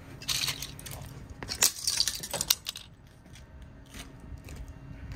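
Plastic Lego pieces of a super-glued toy airplane breaking apart and clattering across concrete paving stones, with bursts of clatter about half a second in and again around two seconds in, then a few scattered small clicks.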